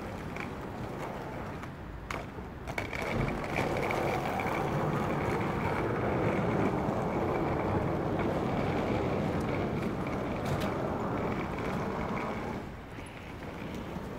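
Noise of a passing vehicle, probably road traffic, swelling about three seconds in, holding steady, and easing off near the end. A faint steady high tone runs under it.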